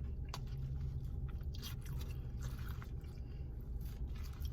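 Close-up chewing and crunching of food, with small scrapes and clicks of a utensil in a bowl, over a steady low background hum.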